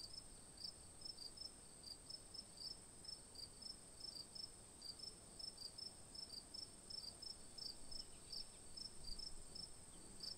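Faint insect chirping: short high chirps, about three a second, over a steady high-pitched whine.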